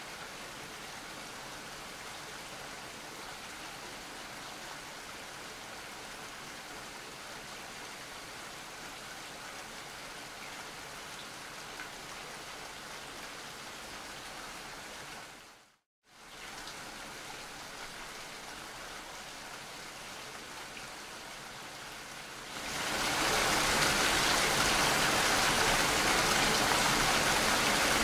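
Steady rain falling as an even, continuous hiss. It cuts out for a moment a little past halfway, comes back, and about six seconds before the end turns abruptly louder and harsher, a dense rush of noise.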